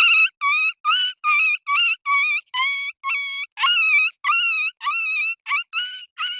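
A child imitating an animal or bird call with the voice: a fast series of short, high-pitched calls, about three a second, each rising slightly at its start, stopping right at the end.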